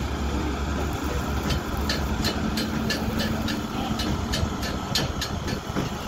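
Diesel engines of a Caterpillar tracked excavator and a small crawler dozer running with a steady low drone, joined from about a second and a half in by a quick run of sharp metallic clanks.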